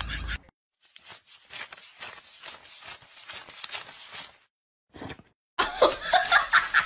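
Soft, quick flicking clicks of a fanned wad of banknotes being riffled by hand. Near the end a much louder run of rapid, high squeaky calls comes in.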